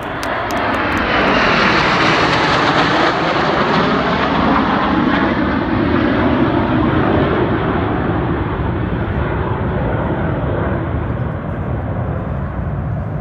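A formation of aerobatic jets flying past overhead: a loud jet roar that swells over the first couple of seconds, holds, then slowly dies away, with a sliding, whooshing pitch as the planes pass.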